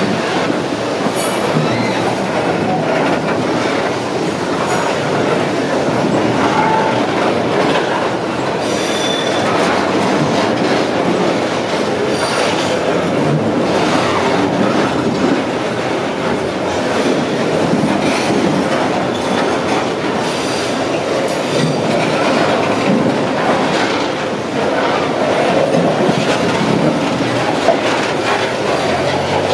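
Freight train's covered hopper wagons rolling past close by: a steady rumble of steel wheels on the rails, with scattered clicks over the rail joints and a few brief wheel squeals.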